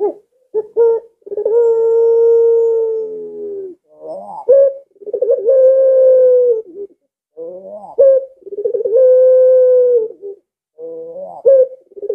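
Barbary dove (puter pelung) cooing: three calls, each a few short opening notes followed by a long drawn-out coo held on one pitch, with a fourth call starting near the end.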